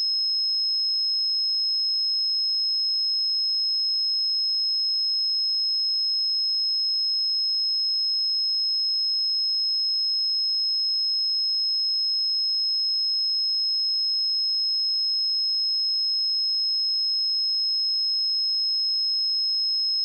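A pure 5161 Hz sine-wave test tone, one steady high-pitched pitch held at a constant level, used to check speakers or headphones.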